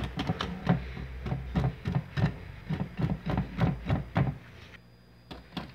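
Wire whisk beating carrot cake batter by hand in a glass bowl: a fast run of strokes clicking against the glass, stopping shortly before the end.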